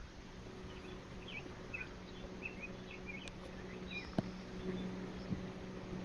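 Small birds chirping in short, scattered notes over a steady low hum, with one sharp click about four seconds in.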